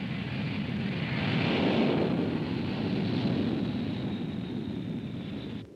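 Jet airliner's turbofan engines running as it taxis: a steady rushing jet noise with a thin high whine on top. The noise swells to a peak about a second and a half in, eases slowly, then cuts off abruptly near the end.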